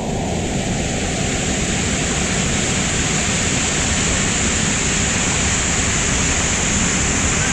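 Waterfall pouring into a deep pool, a loud, steady rush of falling water heard close to the drop.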